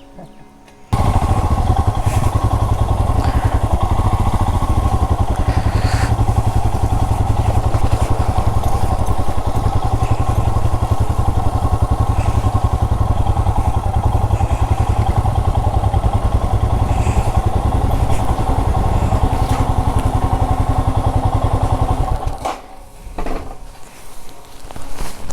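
Royal Enfield Himalayan's single-cylinder engine running at a steady pace while riding, with no revving or gear changes. It cuts in suddenly about a second in and cuts off suddenly near the end.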